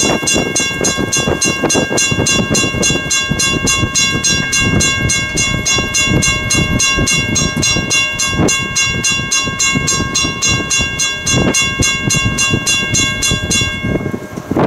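Steam locomotive's chime whistle blowing one long blast of several notes at once, with a rapid flutter of about four pulses a second. It cuts off shortly before the end, over wind noise on the microphone.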